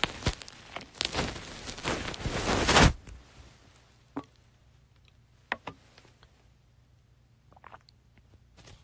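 Close rustling and handling noise at the microphone for about three seconds, followed by a few scattered light taps and clicks.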